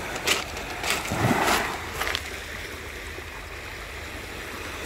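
Sea water washing steadily, with a few light clicks in the first two seconds.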